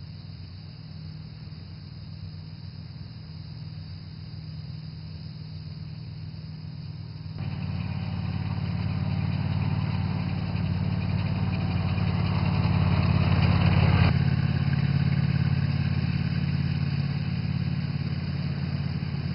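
Club Car utility vehicle's engine running steadily as the vehicle drives by: it grows louder about seven seconds in, is loudest about two-thirds of the way through, then falls back as the vehicle pulls away.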